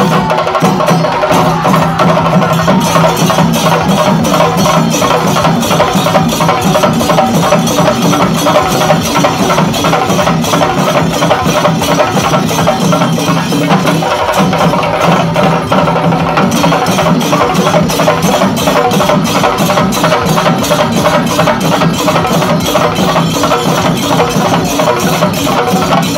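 A chendamelam ensemble of many chenda drums played with sticks, loud and continuous in a fast, dense rhythm of stick strokes.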